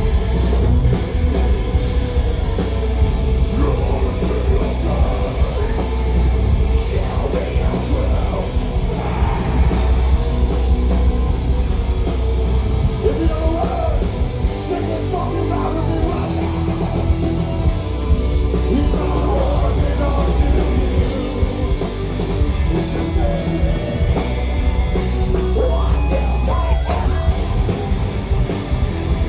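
Metalcore band playing live at full volume, heard from the crowd: distorted electric guitars, bass and a drum kit with yelled vocals over the top.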